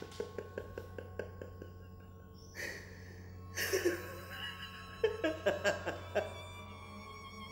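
Quiet violin music with a steady ticking underneath. A man's voice breaks in partway through with short breathy laughs.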